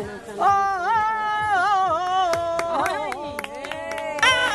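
A person singing unaccompanied in long, drawn-out notes that waver and turn, with a short breath just after the start. A few sharp taps sound midway.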